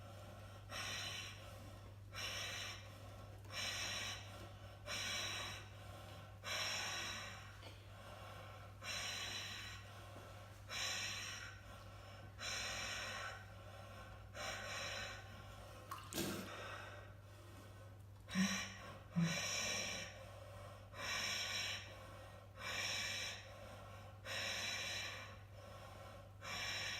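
A man breathing hard and rapidly in 1 °C ice water, about one forceful breath a second: the cold-shock breathing of a face-in-water ice plunge. There is a single click about two-thirds of the way in, and a steady low hum underneath.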